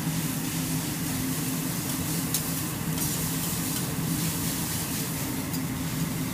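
Rice sizzling on a teppanyaki griddle, with a few sharp clicks of metal spatulas striking the steel plate, over a steady low hum.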